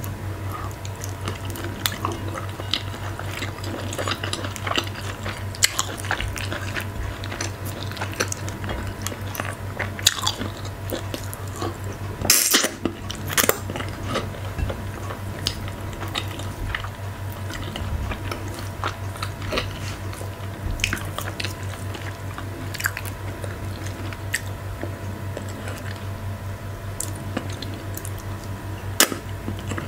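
Close-miked chewing and wet mouth clicks and smacks as fufu dipped in okra stew is eaten with the fingers, over a steady low electrical hum. A brief louder noise comes about halfway through.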